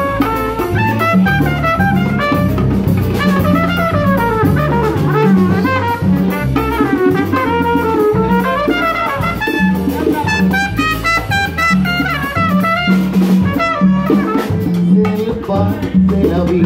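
Live salsa band playing an instrumental passage: a trumpet plays a moving melodic line over a bass line, drums and percussion.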